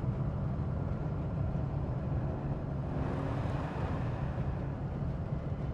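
A vehicle driving, heard from inside the cab: a steady low engine and road rumble, with a rushing swell about three seconds in.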